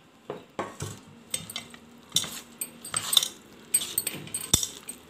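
Boiled jackfruit pieces being stirred into thick gram-flour batter in a steel bowl: irregular clinks and scrapes against the bowl.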